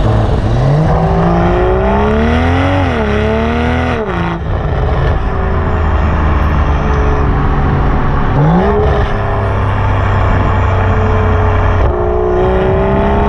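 BMW M340i's B58 turbocharged 3.0-litre inline-six heard through its Milltek downpipe and full exhaust system, from beside the exhaust tip. It pulls hard with the revs climbing, dipping briefly and climbing again, then drops off sharply about 4 s in. It then runs on at steadier, slowly easing revs, with a quick jump in revs about 8.5 s in and another rise near the end.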